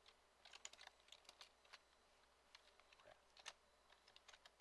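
Faint typing on a computer keyboard: irregular single keystrokes and short runs of keys.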